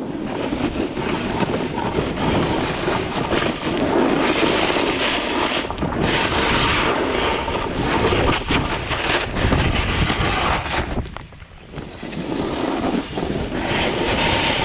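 Wind rushing over the microphone of a camera carried by a skier descending a slope, mixed with skis hissing and scraping over the snow. It eases for about a second late on.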